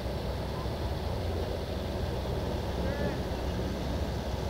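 Outdoor field ambience: a steady low rumble with faint distant voices, and a brief far-off call about three seconds in.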